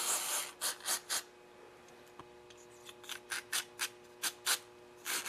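Aerosol carburetor cleaner squirted through a thin straw into the fuel passages of a small chainsaw carburetor, flushing out varnish. A hiss at the start, three short squirts about a second in, a pause, then a quick run of short squirts in the second half.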